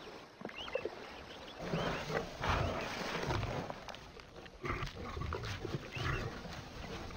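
Lions growling in low, uneven bursts while feeding on a hippo calf's carcass.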